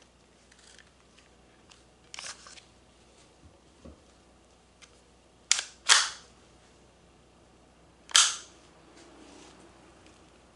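Marzen Walther PPK gas airsoft pistol firing: sharp cracks, a lighter one about two seconds in, then two loud ones close together and a third about two seconds later.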